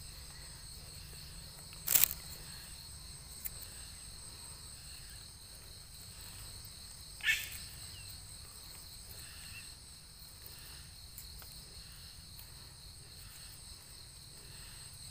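Steady high chirring of insects in the background, with one sharp click about two seconds in and a shorter sound about seven seconds in.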